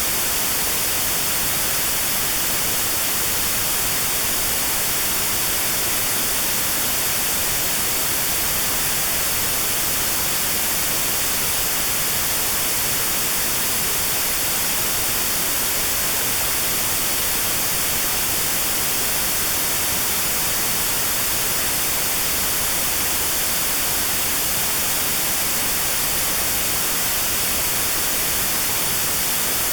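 Steady white noise with a narrow band around 4 kHz cut out (notch-filtered white noise), an even hiss that does not change.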